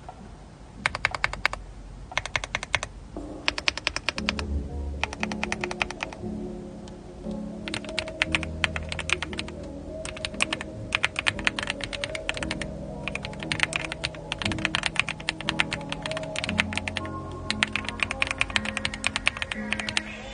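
Typing on an AULA F75 mechanical keyboard: short bursts of rapid keystrokes at first, then near-continuous typing from about eight seconds in. Background music comes in about three seconds in.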